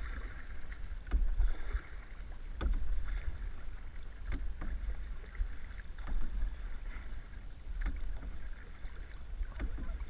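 Canoe paddles dipping and pulling through lake water, a short splash with each stroke every second or so. A steady rumble of wind on the microphone runs underneath.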